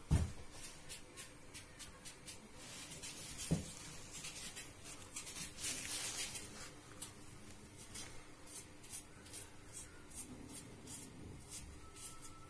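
Knife slicing an onion held in the hand, thin slices dropping into a pan: a run of soft, crisp cuts, about two a second in the second half, with one louder knock a few seconds in.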